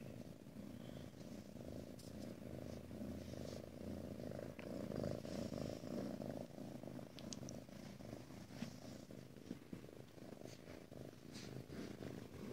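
Ragdoll cat purring steadily and softly, a continuous low, finely pulsing rumble that swells a little about halfway through.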